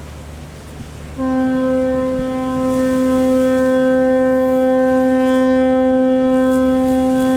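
Ship's horn sounding one long steady blast. It starts sharply about a second in and holds one deep note.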